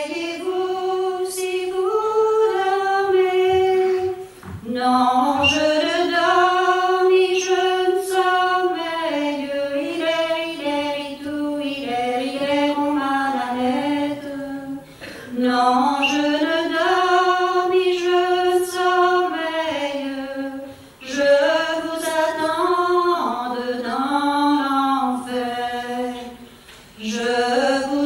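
Unaccompanied voice singing a traditional Gallo song a capella, one melody line in long phrases with short pauses for breath.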